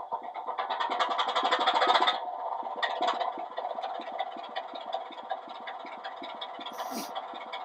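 Sound-fitted 00 gauge Class 24 diesel model playing its recorded engine start-up through its small onboard speaker. The Sulzer diesel cranks and fires, loudest about two seconds in, then drops to a steady idle with an even beat. A short hiss comes near the end.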